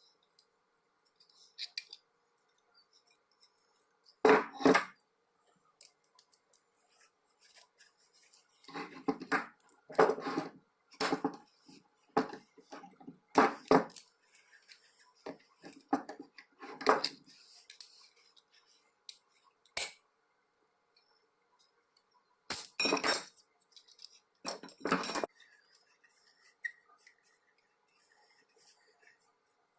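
Metal parts of a cast-iron woodworking vise clinking and knocking as they are handled and fitted during reassembly. About ten separate clanks and rattles, with short pauses between.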